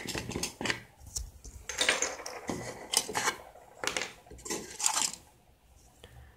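Small hard objects clinking and clattering against a plastic compartment organizer as they are picked up and handled, in several short irregular bursts that die away near the end.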